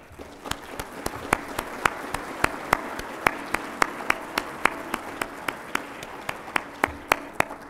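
Audience applauding, with one person's sharp claps close to the podium microphone standing out at about three or four a second. The applause builds in the first second and fades near the end.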